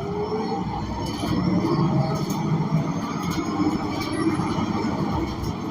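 Interior sound of a Gillig BRT Plus transit bus under way: its Cummins Westport L9N natural-gas engine and Voith automatic transmission running with a steady low rumble, and short rattles and clicks from the cabin.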